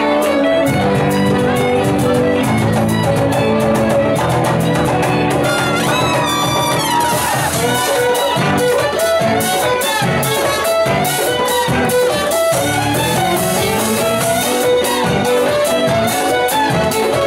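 A large folk ensemble playing a tune live: fiddles carry the melody over brass including a sousaphone, with a steady beat.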